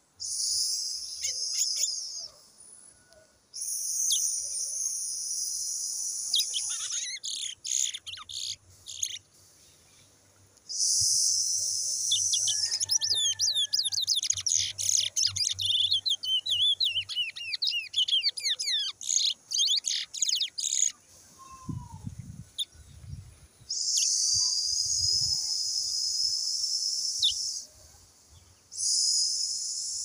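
Caged brown towa-towa (chestnut-bellied seed finch) singing: long, high phrases repeated with short gaps, and a stretch of rapid, sweeping notes in the middle. A few low bumps sound about two-thirds of the way through.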